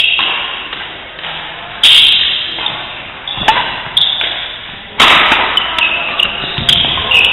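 Doubles badminton rally: rackets smacking the shuttlecock about once a second, each hit echoing in the hall, with shoes squeaking on the court between strokes.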